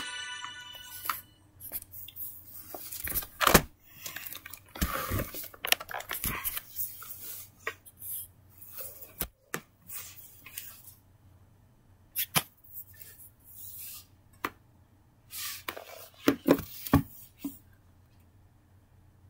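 Handling noises: scattered sharp taps and knocks and short rustles as a tablet and plush toys are handled on a carpeted floor, with quiet gaps between.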